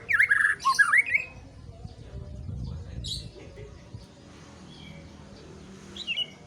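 White-rumped shama singing: a quick phrase of sweeping whistled notes mixed with harsh high notes at the start, a short high note about halfway, and soft notes building into the next phrase near the end.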